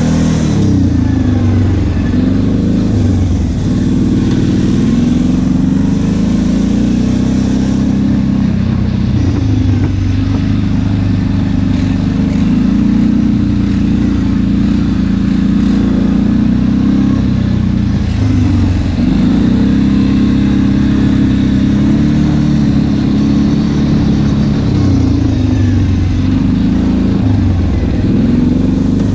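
ATV engine running while riding, with a steady loud note whose pitch drops and climbs back several times as the throttle is eased and reapplied.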